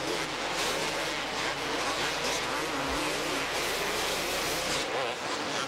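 Several supercross motorcycles' two-stroke engines racing, their pitch climbing and dropping as they rev and shift, over a steady wash of noise.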